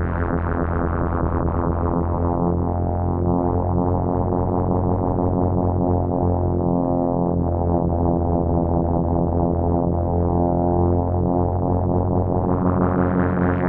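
Behringer 2600 analog synthesizer holding a low, buzzy sustained tone rich in harmonics. Its filter slowly closes so the sound darkens through the middle, then opens again near the end so it turns bright.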